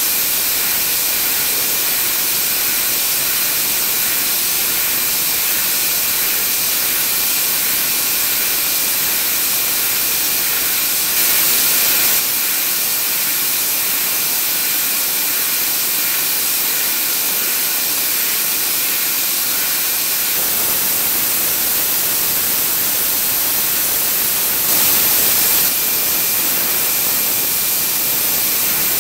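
Nakanishi HTS-1500 air turbine spindle running at 150,000 rpm while micro-milling hardened steel with a tiny carbide ball end mill: a steady air hiss with a faint steady whistle in it. It grows briefly louder twice, about 11 and 25 seconds in.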